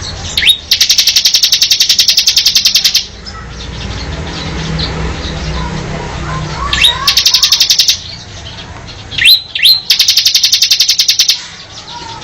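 Mountain cemblek bird (cemblek gunung) singing: three bursts of a fast, even, high trill, each starting with one or two sharp slurred notes, the first lasting about two seconds near the start, the others about halfway through and near the end. Fainter bird calls sound between the bursts.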